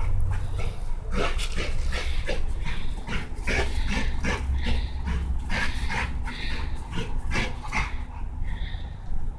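American Staffordshire terrier breathing hard in short, irregular huffs, about two or three a second, as he plays with a toy in his mouth.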